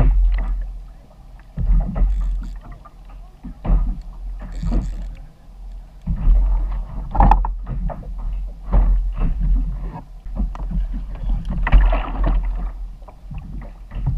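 Water slapping and knocking against a fishing kayak's hull, with wind buffeting the kayak-mounted camera's microphone. It comes in heavy surges every second or two, with sharp knocks.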